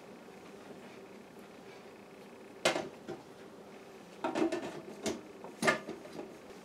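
Filled glass quart canning jars knocking and clinking as they are set down into the pot of an electric pressure canner: a sharp knock about two and a half seconds in, then several more between four and six seconds in, over a faint steady hum.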